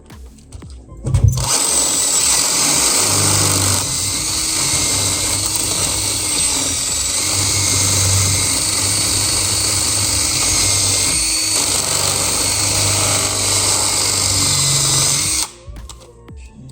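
Power drill running steadily under load as it bores out a lock cylinder. It starts suddenly about a second in and stops shortly before the end.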